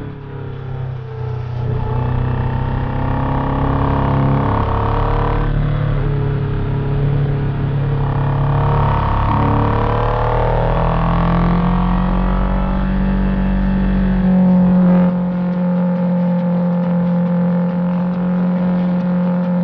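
Honda CBR1000RR Fireblade's inline-four engine heard from on board, revs climbing and dropping in steps as it accelerates and shifts through the gears. It settles to a steady pitch about fourteen seconds in.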